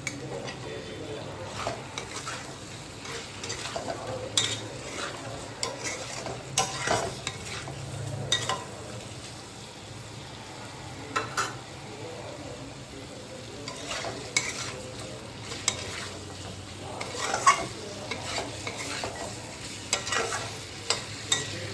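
Chicken pieces sizzling as they fry in a pan, with a spatula stirring them and scraping and knocking against the pan at irregular moments.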